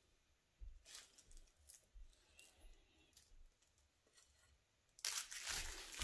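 Faint scraping of a silicone spatula against a glass bowl as chocolate glaze is pushed into a plastic freezer bag, then about five seconds in a louder crinkling of the plastic bag being handled.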